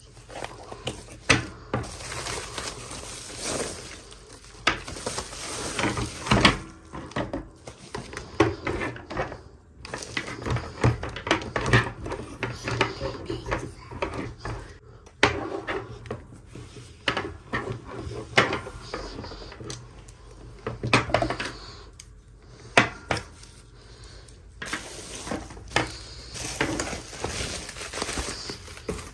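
Small hard plastic toy pieces and packaging being handled: irregular clicks, taps and clatter over light rustling.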